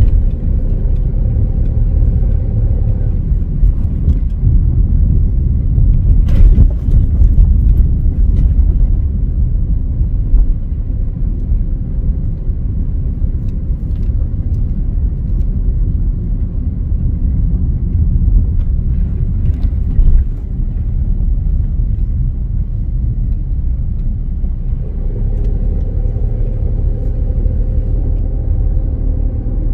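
Steady low rumble of a car driving, heard from inside the cabin, with a faint hum at the start and again near the end and a few light knocks.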